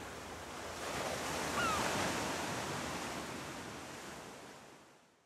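Ocean surf washing in, a steady rushing that swells and then fades out about four and a half seconds in, with a bird's short falling cry about a second and a half in.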